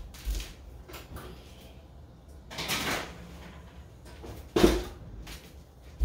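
A sheet pan of ribs being put into a kitchen oven: a scraping slide about two and a half seconds in, then a loud thump a little later as the oven door shuts.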